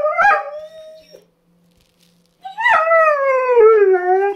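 A dog howling, set off by its owner's recorded voice coming from a speaker: a short howl at the start, then after a pause of a second or so a longer howl that slides steadily down in pitch.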